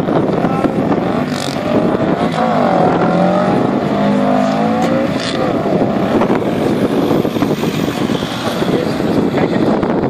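Subaru drag car accelerating away down the strip. Its engine note rises and falls from about two to five seconds in, then fades with distance. Strong wind buffets the microphone throughout.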